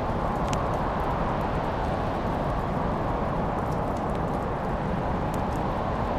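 Wood fire crackling in a fireplace, with scattered sharp pops over a steady low rushing of flame.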